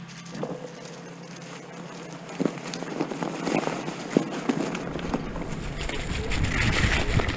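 A Onewheel XR electric board rolls fast over a trail of dry fallen leaves, with scattered crackles from the leaves and a faint steady hum. Over the last couple of seconds wind rumbles on the microphone as the board picks up speed.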